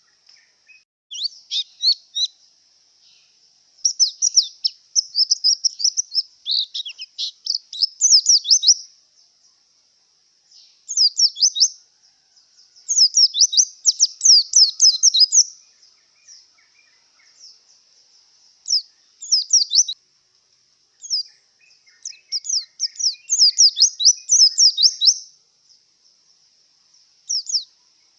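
White-eye (pleci) singing: rapid, high-pitched twittering phrases of quick falling notes, in bursts of a few seconds with short pauses between. The bird is a male in breeding condition, going by the uploader.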